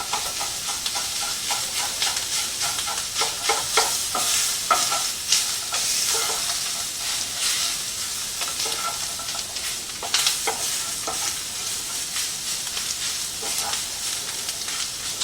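Shredded beef frying and sizzling in a hot pan, with a utensil repeatedly tapping and scraping against the pan as the meat is chopped up and stirred.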